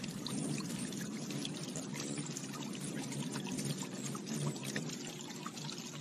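Water from a small fountain jet splashing and trickling steadily, with many tiny droplet ticks.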